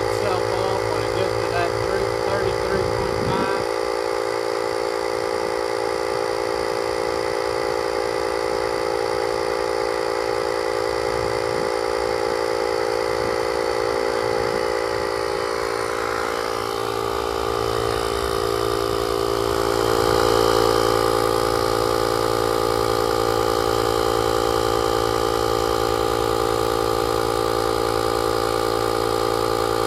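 The air compressor built into a JFEGWO 6000A jump starter, running steadily with a constant motor hum as it inflates a car tire toward a set 33.5 psi. Its tone shifts and gets slightly louder a little past halfway.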